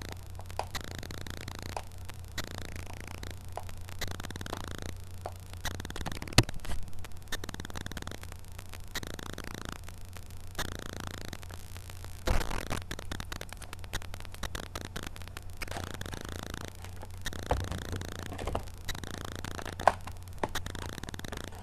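Foil trading-card packs being handled and shuffled by hand, the wrappers crinkling and scraping against each other in irregular bursts with a few sharp clicks, over a steady low hum.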